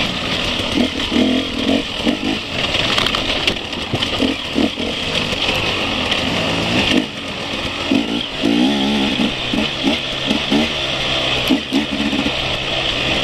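Enduro motorcycle engine heard from on the bike, revving up and down in short surges as it is ridden along a rough dirt trail, over a steady hiss.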